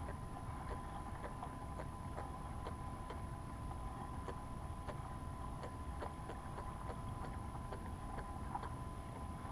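Water lapping and slapping against the hull of a fishing kayak, with small irregular splashes over a steady low wash of sea and wind. A faint steady high tone runs underneath.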